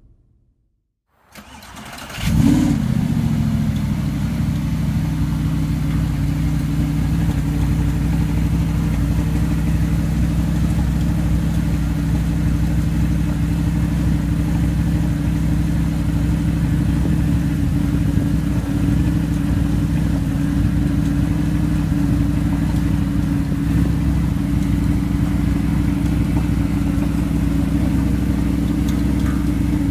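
2009 Audi R8's 4.2-litre V8 cranked over by the starter and catching about two seconds in with a brief rev flare, then settling into a steady idle.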